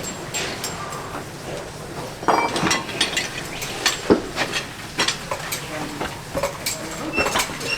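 Farrier's hand tools working a racehorse's hoof: irregular sharp clicks, clinks and short scrapes, coming thicker from about two seconds in.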